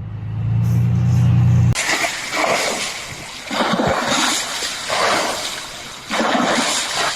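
A low engine hum that cuts off abruptly about two seconds in, giving way to loud splashing, rushing water that swells in repeated surges about once a second.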